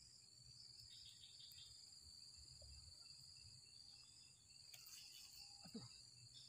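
Near silence with a faint, steady, high-pitched insect chorus.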